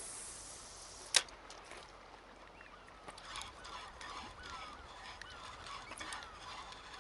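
A single sharp click about a second in, then birds calling over and over in short, falling, goose-like honks, faint over a light hiss.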